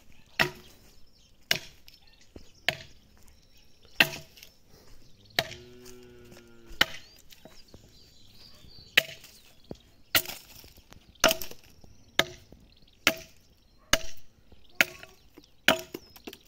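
Axe blows chopping into a wooden log, hewing it by hand into an ox-cart axle: about fifteen sharp strikes, roughly one a second, coming faster in the second half.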